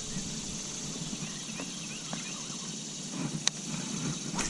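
Steady high-pitched outdoor insect drone, with two sharp clicks near the end.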